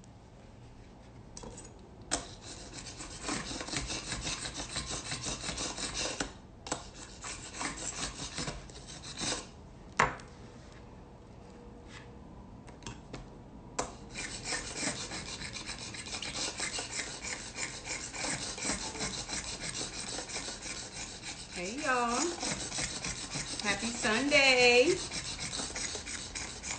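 Chef's knife sharpened on a small countertop knife sharpener: bouts of fast, even scraping strokes of steel on the sharpener, with a few short pauses. Near the end a brief voice-like sound rises above it.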